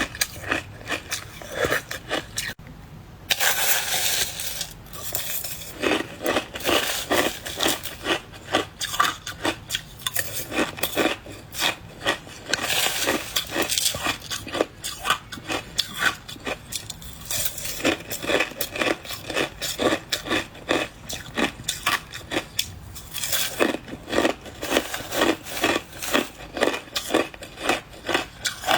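Close-miked crunching of soft white ice, freezer frost or shaved ice, being chewed: quick runs of crisp crunches, about four a second at times, with short pauses between mouthfuls.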